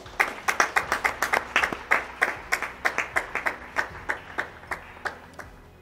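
Hands clapping in a short, sparse round of applause, about five or six distinct claps a second, fading out near the end.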